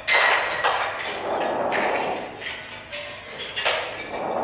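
Small percussion objects (wooden sticks, tins and metal bowls) struck and handled by hand in an improvisation: about five knocks and clinks, each with a short ring. The first strike is the loudest.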